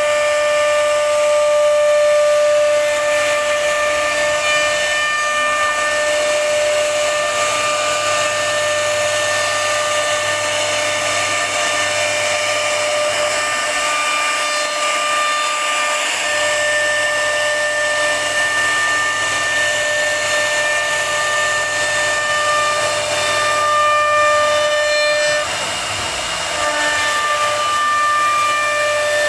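CNC router spindle running with a steady high-pitched whine over the hiss of its bit cutting into a wooden door panel. A few seconds before the end the whine briefly drops and the sound wavers, then the steady tone returns.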